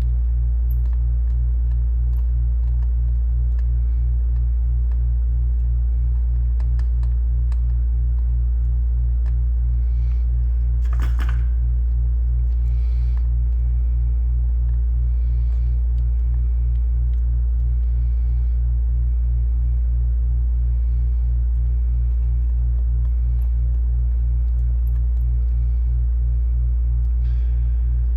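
Steady low hum, pulsing evenly a few times a second, with a few faint clicks and a brief hiss about eleven seconds in.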